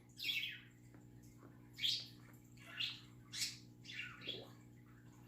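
Pet budgerigars chirping: about five short calls that fall in pitch, spaced out with gaps between them.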